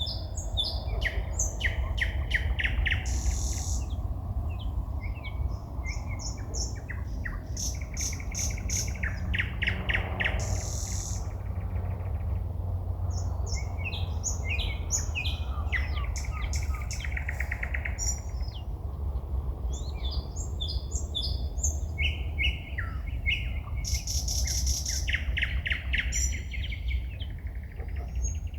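Woodland songbirds singing at night: fast runs of repeated clicking and trilled notes alternating with short high whistles, over a steady low hum.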